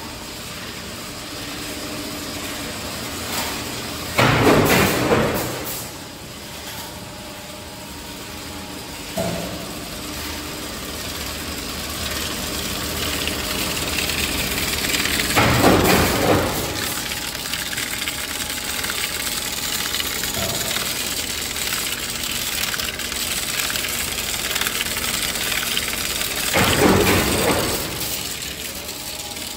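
Ceiling main T-bar roll forming machine running: a steady mechanical hum with several held tones. Three louder rushing surges, each a second or two long, come about eleven seconds apart.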